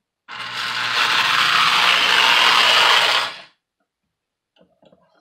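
Lionel 1120 Scout toy locomotive running along the track, its freshly rebuilt motor and gears making a loud grinding noise over a steady low hum. It builds up over about half a second and cuts off suddenly about three seconds later.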